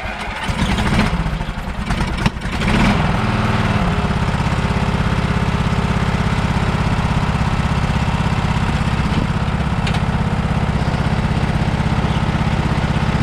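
Small lawn tractor engine starting up, running unevenly for the first few seconds with a knock, then settling into a steady run.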